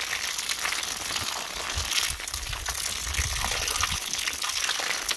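Rainwater gushing from a roof drain spout and splashing onto a foot and the wet ground, over the steady hiss of heavy rain.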